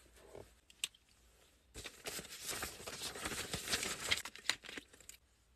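Sheets of paper rustling and crinkling as they are handled and shuffled, starting about two seconds in and stopping shortly before the end.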